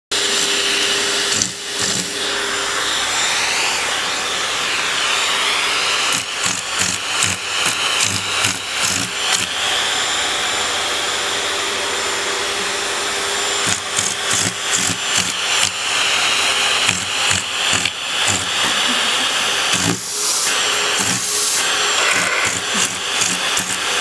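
Vacuum cleaner running with its hose nozzle held against a cat's paws and face. The motor's whine drifts up and down in pitch, and the sucking sound flutters and sputters in stretches as the nozzle is covered and uncovered.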